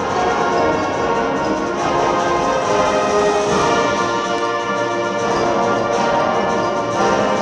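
School concert band playing, with brass holding sustained chords over the full ensemble.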